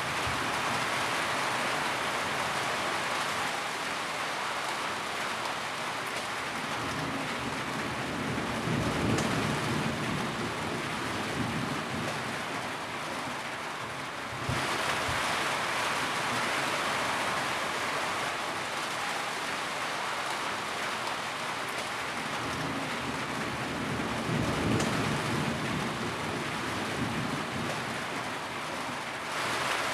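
Steady rain falling, an even hiss of drops, with a low rumble swelling up twice.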